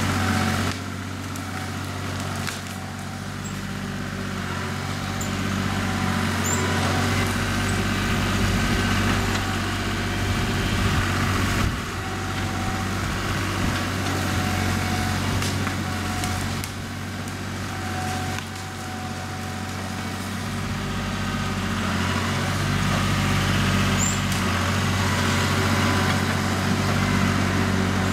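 John Deere 5403 utility tractor's three-cylinder diesel engine running steadily at work as the loader pushes woody debris, its loudness dipping and swelling several times as the load changes.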